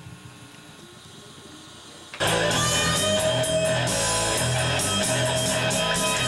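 Rock band music with strummed electric guitar and bass comes in suddenly at full volume about two seconds in, after a quiet stretch of studio room sound.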